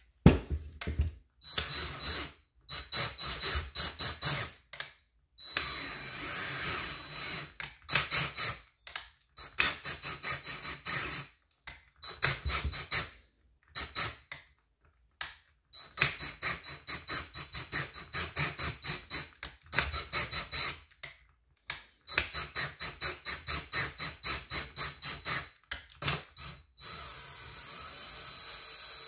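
Cordless drill boring out a steel Helicoil thread insert from a bolt hole in an aluminium small-engine crankcase. The drill runs in stop-start bursts, mostly short trigger pulses with a few longer runs of several seconds carrying a steady high motor whine. Near the end it settles into a quieter steady run.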